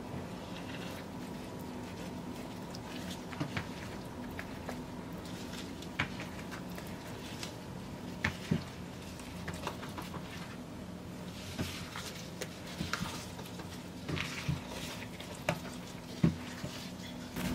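Oiled focaccia dough being folded and pressed by a plastic-gloved hand in a glass baking dish: irregular soft wet squishes and light taps scattered throughout, over a steady low hum.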